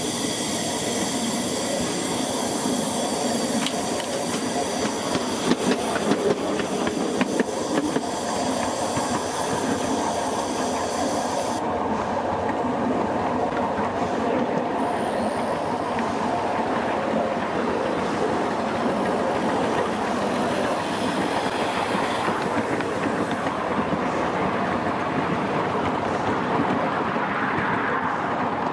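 Miniature live-steam locomotive pulling away and running along the track, its wheels clicking over the rail joints with a steady rolling rumble and a few sharp knocks. A loud steam hiss goes with it for about the first twelve seconds, then cuts off suddenly.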